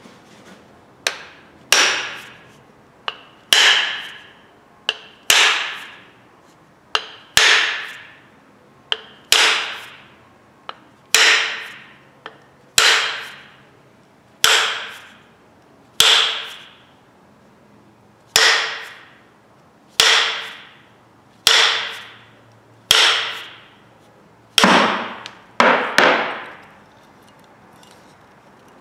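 Hammer blows driving a new wooden handle into a forged hatchet head to seat it, about sixteen strikes roughly every second and a half. Each blow is a sharp knock with a short metallic ring.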